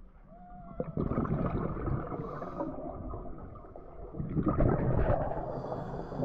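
Scuba diver breathing underwater through a regulator: a faint thin whistle-like tone near the start, then two long rushes of exhaled bubbles, the first about a second in and the second about four seconds in.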